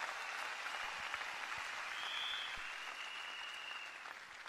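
A large audience applauding, swelling and then slowly dying away, with a faint high tone about halfway through.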